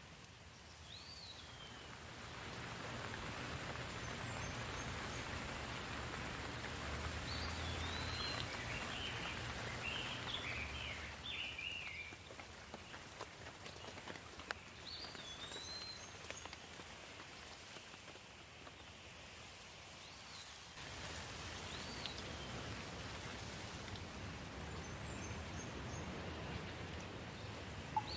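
Steady rain falling, growing heavier about two seconds in, easing for a while and picking up again near the end. Birds chirp briefly now and then over it.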